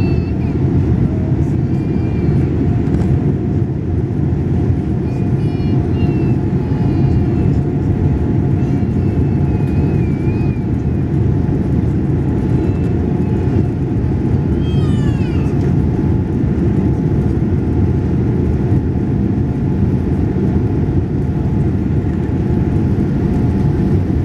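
Cabin noise inside a Boeing 787 Dreamliner on the runway: a steady loud rumble from the engines and the airframe, with a faint steady whine. During the first fifteen seconds or so, faint high, gliding cries come and go over it.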